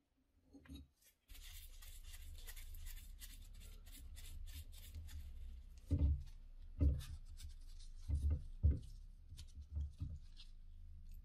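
Hand-tool work on a Bosch K-Jetronic fuel distributor on a wooden bench: scraping and many small clicks as a wrench works the top nut and parts are handled, then several dull knocks in the second half, over a steady low hum.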